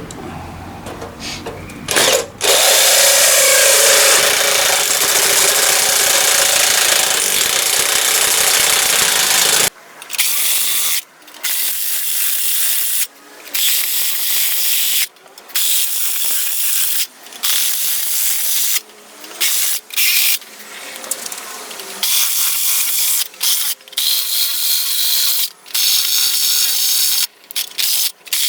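Handheld power tool working on a metal fire pit during a modification. It runs steadily for about seven seconds, then in a series of short bursts of a second or two with brief pauses between them.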